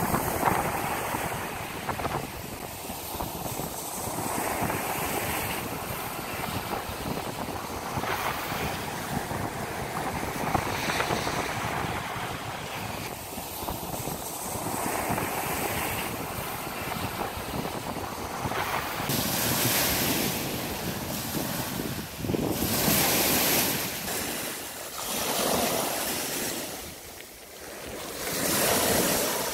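Surf breaking and washing up a sandy beach, with wind. In the second half the surges come about every three seconds.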